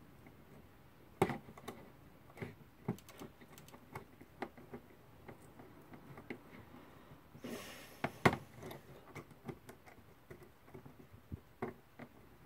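Faint, irregular small clicks as an old Haller alarm clock's mainspring is let down by hand with a let-down tool, with a sharper click about a second in and another about eight seconds in, and a brief rustle just before the second.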